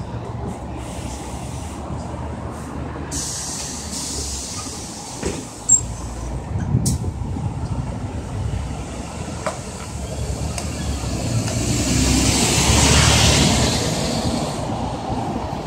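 Low rumble of city bus engines running at a stop, with a hiss of air and a sharp knock about six seconds in as the articulated bus's doors close. The engine noise grows louder near the end as that bus moves off and another bus pulls in.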